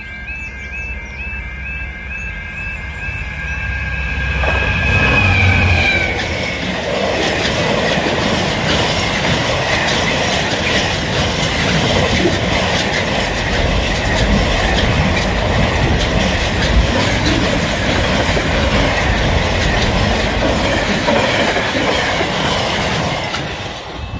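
A level crossing's warbling two-tone alarm sounds as a Class 66 diesel locomotive passes, with its engine loudest about five seconds in. Then a long freight train of container flat wagons rolls over the crossing, covering the alarm, and it falls away near the end.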